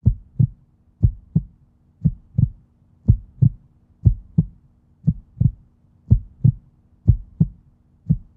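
Heartbeat: paired low thumps, lub-dub, about once a second, over a faint steady low hum.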